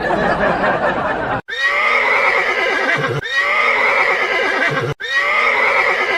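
A high, wavering animal-like call, the same sound-effect clip played about three times in a row with abrupt cuts between.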